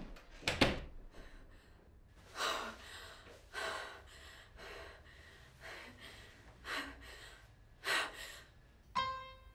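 A woman breathing hard in a run of gasping breaths, one every second or so, the panicked breathing of an anxiety attack. Music starts just before the end.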